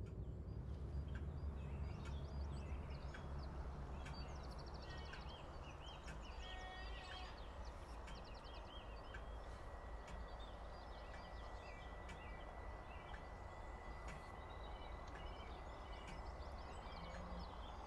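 Morning birdsong: several birds chirping and trilling, over a low rumble that eases off in the first few seconds.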